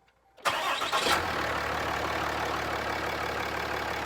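2018 Ram 2500's 6.7-litre Cummins straight-six turbo diesel starting on freshly installed batteries: it fires about half a second in, catches within about a second and settles into a steady idle.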